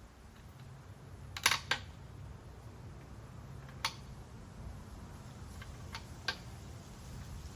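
A few sharp clicks and taps, a close double click about one and a half seconds in and single ones later, from tools or small parts being handled during outboard motor reassembly, over a low steady hum.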